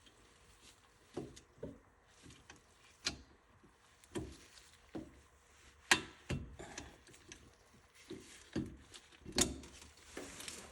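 Hand tools clicking and knocking against metal in irregular single strikes, the sharpest about six seconds in.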